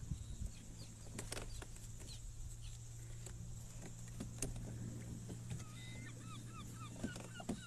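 Rod and spinning reel handled and cranked while playing a fish from a kayak: scattered clicks and knocks over a steady low hum. Near the end comes a quick run of short chirping bird calls.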